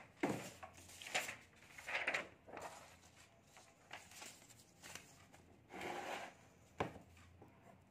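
Sheets of paper being handled and turned over: a series of soft rustles and shuffles, with one sharp tap a little before the end.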